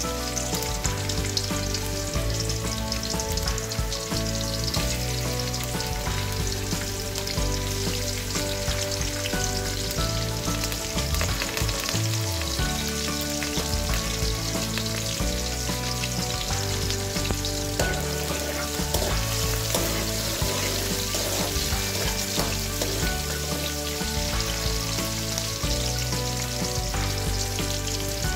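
Chopped garlic and green chillies sizzling steadily in hot fat in a kadai.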